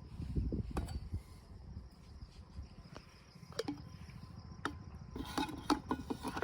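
Light clicks and knocks of the Makita coffee maker and its plastic cup being handled and fitted together, a few spread out and a quick cluster near the end, over a low steady rumble.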